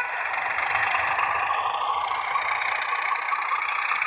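Hornby class 31 OO gauge model locomotive passing close by, its TTS sound decoder playing a steady diesel engine sound through the model's speaker, mixed with the wheels of the loco and coaches rolling along the track.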